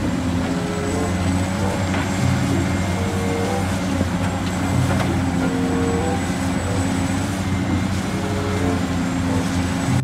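Diesel engine of a large Caterpillar 365C hydraulic excavator running steadily under load as it digs, its pitch stepping up and down a little, with a few faint knocks.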